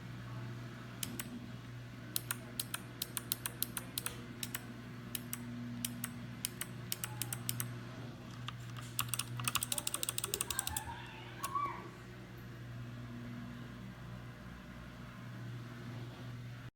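Keys of a mechanical keyboard being typed on: scattered keystrokes, then a quick run of them about nine to eleven seconds in, over a steady low hum.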